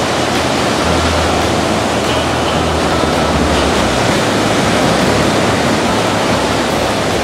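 Ocean surf washing up on a sandy beach: a loud, steady rush of noise.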